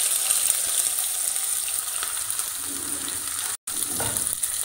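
Chopped onions sizzling as they fry in hot mustard oil with cumin seeds, a steady hiss. The sound cuts out for an instant about three and a half seconds in.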